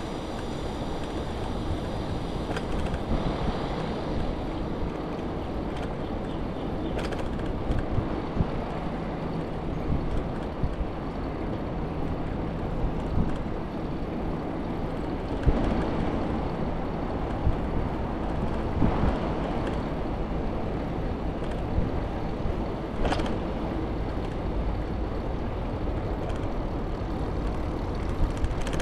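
Steady rumbling ride noise of a bicycle rolling over brick paving, with occasional short knocks from bumps in the path.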